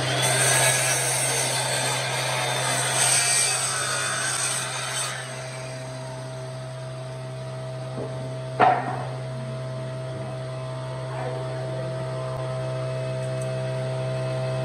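Ryobi sliding mitre saw running and cutting through a wooden board for about five seconds, then winding down. A single sharp knock follows about three seconds later.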